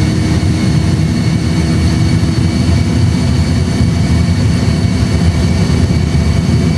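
Airbus A320 flight simulator's engine and runway sound at take-off thrust during the take-off roll: a steady, loud low rumble with a faint high, steady jet whine above it.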